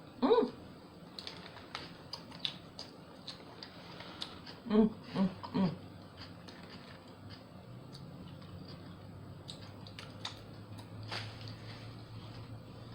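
Close-miked chewing of a sub sandwich on soft bread, with many small wet mouth clicks. A short voiced sound comes near the start and three short voiced sounds about five seconds in, and a low steady hum rises under it in the second half.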